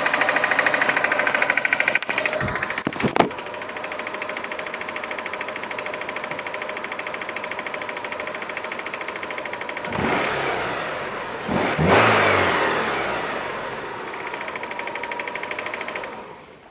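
Mitsubishi 4G93 engine idling with a rhythmic metallic ticking from the timing belt and crankshaft pulley area, roughly in time with crankshaft rotation. The owner has ruled out valve clearances, the timing belt and its tensioner, and the accessories as the cause. The engine is revved twice about ten and twelve seconds in, then the sound stops near the end.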